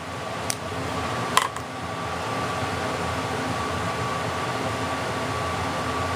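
Steady fan-like whirring hum with a faint thin tone, building up over the first couple of seconds and then holding even. Two sharp clicks come in the first second and a half.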